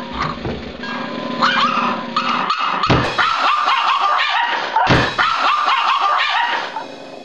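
Yorkshire terrier barking and yipping in rough play, in quick short calls, with a couple of low thumps about 3 and 5 seconds in.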